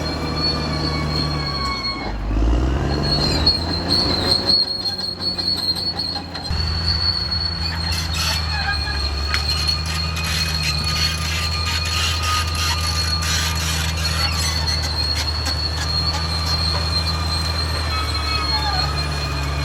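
Caterpillar D6R XL bulldozer working: the diesel engine runs steadily under a high, sustained squeal from the steel tracks and undercarriage, with a clattering of track links. The engine pitch dips and recovers about two seconds in.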